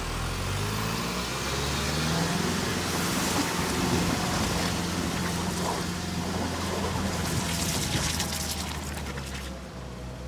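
Sisu off-road truck's diesel engine pulling at a low, steady pitch, rising briefly about a second in. Over it runs a rushing, splashing noise that swells twice and fades near the end.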